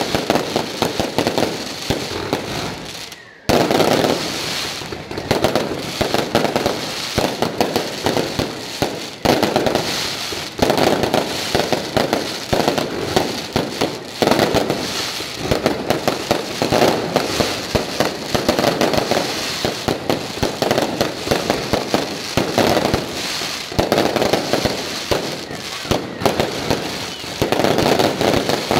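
Aerial fireworks display: a dense, continuous barrage of shell bursts in quick succession, with a brief lull about three seconds in before it resumes abruptly.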